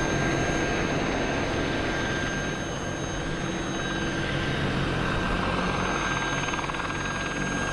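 AH-64 Apache attack helicopter flying past, its main rotor and twin turbine engines making a steady noise with a constant whine.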